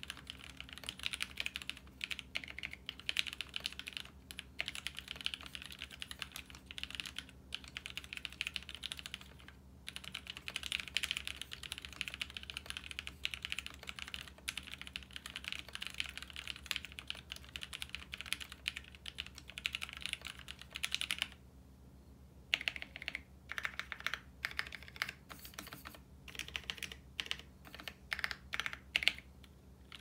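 Fast, steady typing on a mechanical keyboard: lubed, broken-in Novelkeys Cream linear switches with Novelkeys Cherry Blossom keycaps, in a KBDFans KBD8X MKII with a brass o-ring top-mount plate and an aluminium case. The typing stops briefly a little past two-thirds of the way through, then resumes in more spaced-out keystrokes.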